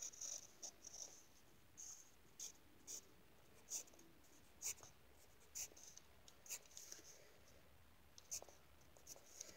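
Graphite pencil scratching on lined notebook paper in short, separate strokes, irregularly spaced, about one or two a second, faint.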